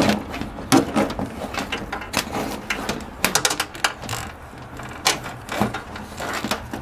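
Cables being handled and fed through a tight wall cavity: irregular clicks, knocks and scraping of cable jackets rubbing against panels and each other.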